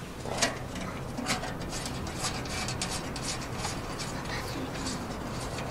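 A nut being turned off a mounting bolt by hand on a steel wood stove, making faint scattered metallic clicks and scrapes over a low steady hum.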